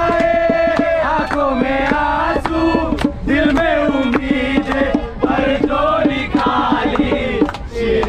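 Voices singing a chant-like devotional song over a steady beat of sharp percussion hits.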